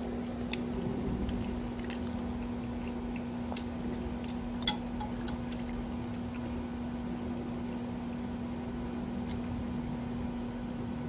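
Metal spoon stirring through thick, saucy baked beans in a ceramic bowl: soft squishing with a few sharp clicks of the spoon against the bowl, the loudest about a third of the way in, over a steady low hum.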